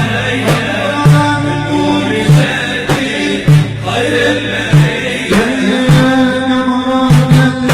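Arabic dance song: a melody line over sustained pitched backing, with a heavy low drum beat about once a second.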